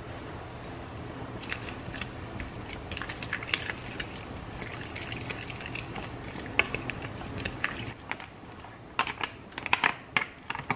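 Irregular crackling and clicking of hands handling food and packaging in kitchen preparation, with a cluster of sharper clicks near the end.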